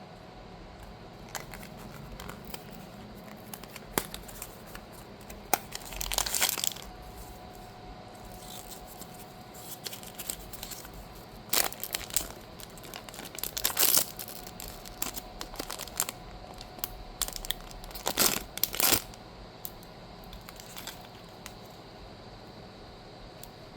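Blind-box packaging being torn open and crinkled by hand, with small clicks of handling between several louder rips and crumples.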